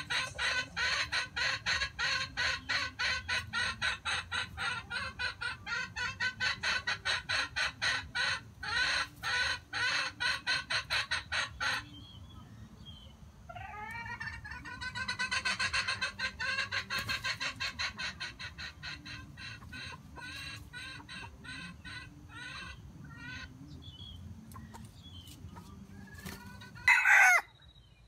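Junglefowl clucking in a fast, steady run of several notes a second, then slower, falling clucks and scattered calls, with one short, loud call near the end.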